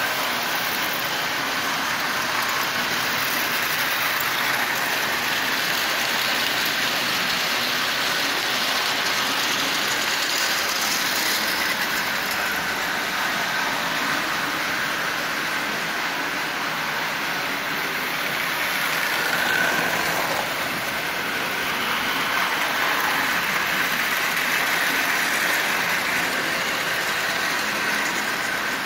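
Marx tinplate toy train running on three-rail tubular steel track: the locomotive's electric motor whirs while the wheels rattle and clatter over the rails, a steady running noise.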